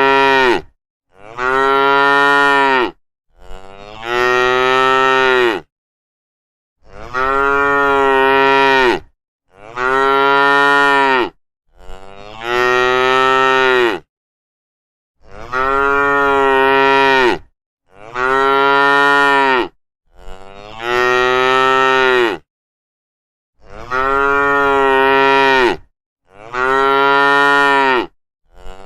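A cow mooing over and over: about eleven drawn-out moos of roughly two seconds each, near-identical in pitch and shape, every two to three seconds with complete silence between them.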